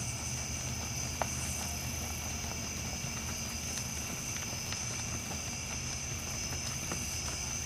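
Night insects chirring steadily at a constant high pitch over a low steady hum, with only faint soft thuds from a horse trotting in sand footing.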